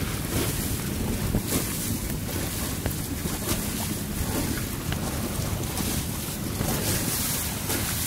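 Wind buffeting the microphone on a sailboat under sail, a steady gusty rush, with the hiss and wash of sea water along the hull swelling now and then.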